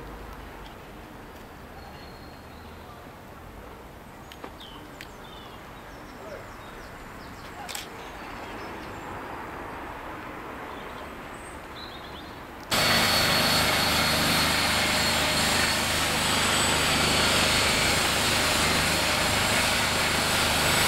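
Outdoor ambient noise: a low steady background hiss with a few faint clicks, then an abrupt cut, about two-thirds of the way through, to a much louder steady rushing noise.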